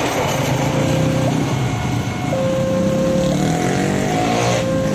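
Railway level-crossing warning alarm sounding a two-tone electronic signal that switches between a lower and a higher pitch about once a second, over the idling and revving of many motorcycle engines.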